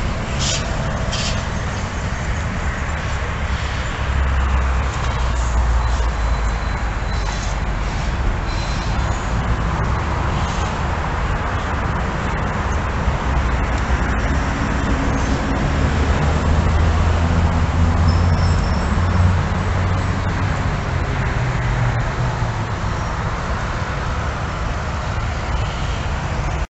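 Street traffic noise: a steady wash of passing vehicles with a low engine rumble that swells for several seconds past the middle.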